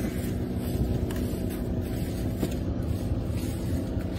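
Fishing boat's engine running with a steady low hum, with faint clicks now and then.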